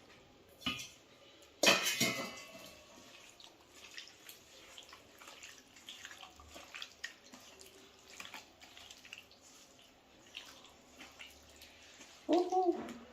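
Raw chicken pieces being mixed into a wet masala marinade in a metal vessel: wet squelching with clinks and scrapes against the vessel, and a louder clatter about two seconds in.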